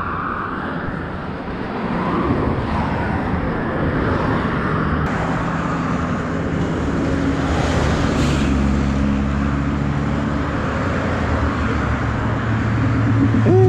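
Highway traffic going past, a steady road roar with wind, and a vehicle's engine hum that builds in the second half as a car passes about two-thirds of the way through.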